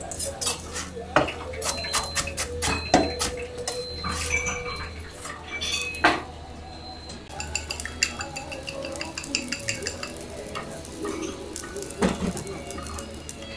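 A kitchen knife cuts through a crisp fried pork cutlet on a cutting board, with sharp knocks and clinks of knife, board and pans. After about seven seconds the sound settles to a quiet sizzle as the cutlet simmers in sauce and beaten egg in a small pan over a gas flame, broken by an occasional knock of chopsticks or pan.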